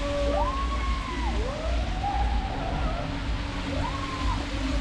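Water rushing over the top of a tube water slide, with three long rising-and-falling screams from the riders sliding down. A low steady hum runs underneath.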